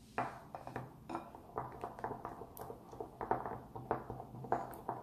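Spatula stirring a thick glue slime mixture in a glass bowl: a run of irregular taps and scrapes against the glass, several a second.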